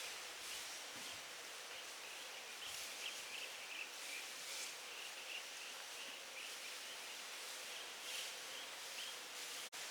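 Outdoor forest ambience: a steady hiss with a string of short, high chirps repeating irregularly and a faint steady hum beneath. The sound drops out for an instant near the end.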